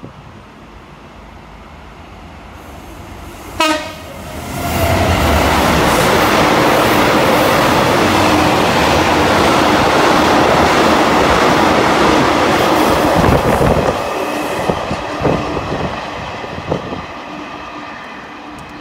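A DB Cargo Class 66 diesel locomotive, 66105, with its two-stroke V12 engine, hauling a freight train past. It gives a short horn blast about three and a half seconds in, then the locomotive and wagons go by loudly. The sound fades over the last few seconds with the knocking of wheels over rail joints.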